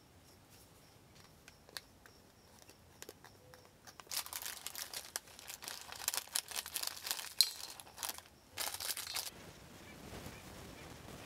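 Small clear plastic bag crinkling and rustling for about five seconds as crumbled topping is shaken and squeezed out of it onto a salad, after a few faint ticks. It stops suddenly near the end.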